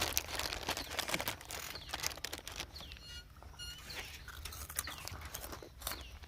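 Bird chirps, a few short high notes about three seconds in, over irregular crunching and crackling clicks.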